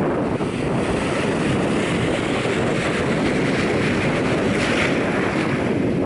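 Small waves washing in over sand at the shoreline, a steady rush of surf that swells to a brighter hiss about three-quarters through, with wind rumbling on the microphone.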